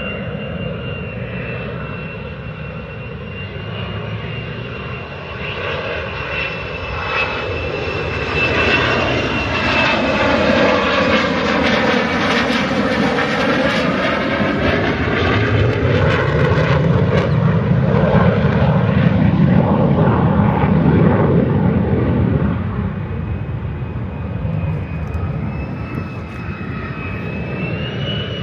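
Fighter jet flying low overhead: a steady high turbine whine, then a sweeping whoosh as it passes, followed by a deep jet roar that swells to its loudest about two-thirds of the way through and then eases. Near the end a high whine rises again.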